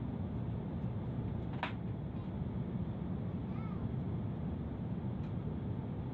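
Steady low roar of airliner cabin noise in flight, heard from inside the cabin. A single sharp click comes about one and a half seconds in, and a faint short high chirp comes near the middle.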